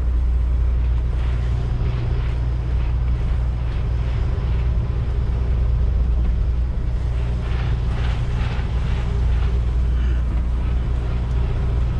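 Semi truck's diesel engine running steadily with a low, even hum.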